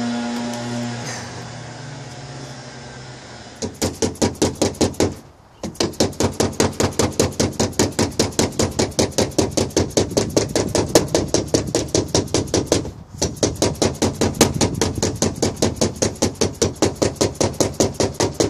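Rapid, evenly paced hammer tapping on a car's sheet-metal body panel, about five or six light taps a second, typical of paintless dent repair knockdown work that levels high spots around a dent. The tapping pauses briefly twice. A steady low hum fades out before the tapping begins.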